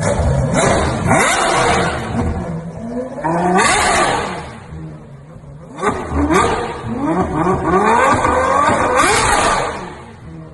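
Ferrari 812 Superfast's naturally aspirated V12 revving hard twice, its pitch climbing and falling in each run, then dying away near the end.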